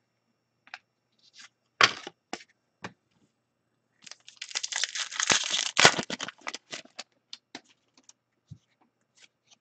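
Hockey card pack wrapper torn open and crinkled for about two and a half seconds, from about four seconds in. Before and after it come scattered light clicks and snaps of cards being handled.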